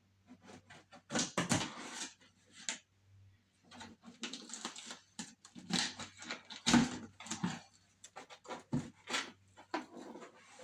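Plastic packaging and wrapping rustling and crinkling irregularly as a package is opened and its contents handled, over a faint steady electrical hum.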